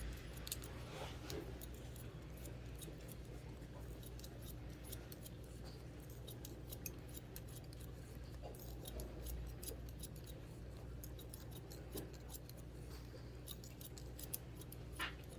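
Barber's scissors snipping hair: irregular runs of quick, crisp snips.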